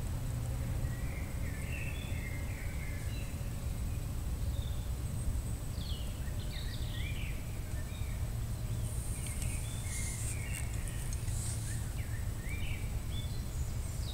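Outdoor ambience: birds give short, scattered chirps over a steady low rumble, with a brief high hiss about two-thirds of the way through.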